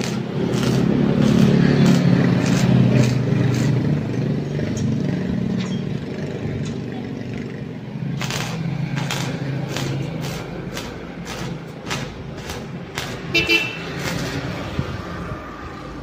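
Arc welding on a steel grille frame: a low buzz with crackle, heaviest in the first few seconds, then a run of sharp taps in the middle and a short high toot near the end.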